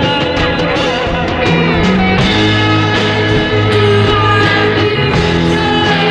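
Live heavy psychedelic rock band playing: guitar and bass holding long notes over steady drum hits.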